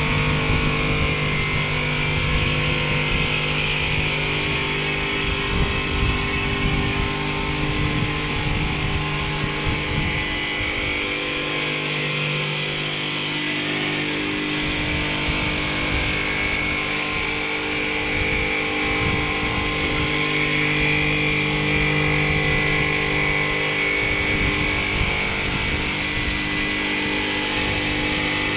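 Richpeace single-needle frame-type quilting machine stitching: the needle head working and the gantry motors driving it across the frame, giving a steady mechanical running hum. The hum eases briefly about ten seconds in.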